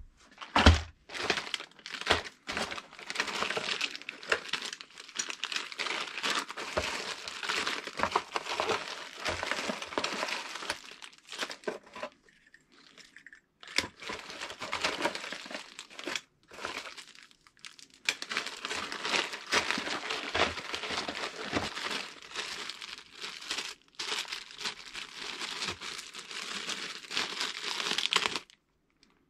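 Crinkling and crackling handling noise with many sharp clicks. It pauses briefly about twelve and seventeen seconds in and stops shortly before the end.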